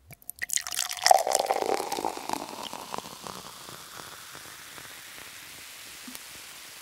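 Party room noise between songs: sharp clicks and clatter, loudest about a second in, dying away by about three seconds in to a steady low hiss.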